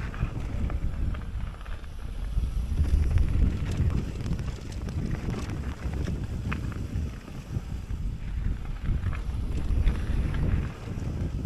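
Wind buffeting the microphone of a mountain bike moving at speed, over the rumble of knobby tyres rolling on a dirt trail, with scattered small clicks and rattles from the bike going over bumps and rocks.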